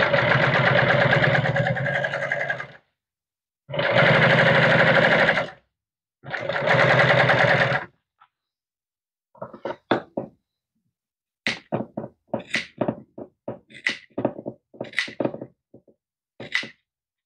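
Industrial sewing machine stitching welt onto a vinyl cushion panel in three runs of about two seconds each, stopping briefly between runs. From about halfway on, a string of short sharp snips and clicks as shears cut the welt at the presser foot.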